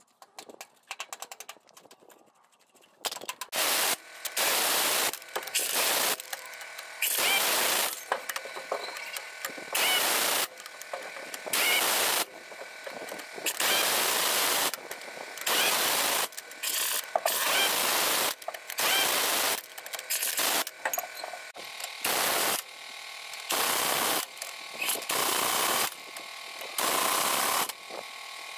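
Large pneumatic impact wrench hammering in repeated short bursts as it runs down and tightens the wheel nuts on a truck wheel, with quieter gaps between bursts. Light metallic clicks come first, as nuts are threaded on by hand, before the wrench starts about three seconds in.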